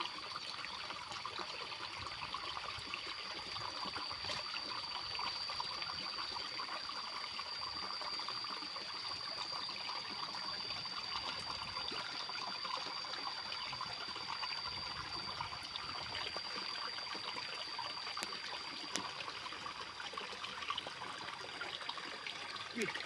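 Water trickling steadily into a fish pond, with a thin, steady high-pitched whine over it that fades out a few seconds before the end.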